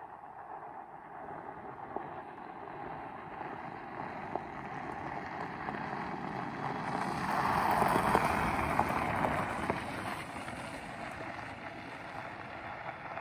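Fat tyres of a monster scooter rolling over a gravel track, growing louder as it comes closer, loudest about eight seconds in as it passes, then fading.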